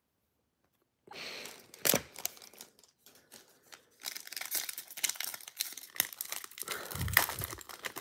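Foil wrapper of a Panini Prizm football card pack being torn open and crinkled by hand, with a sharp crackle about two seconds in and continuous crinkling through the second half.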